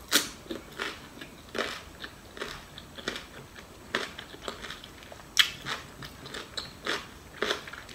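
Close-up eating sounds: a person biting into a raw green pod and chewing it with deep-fried pork larb, with irregular crisp crunches, the loudest just after the start and about five and a half seconds in.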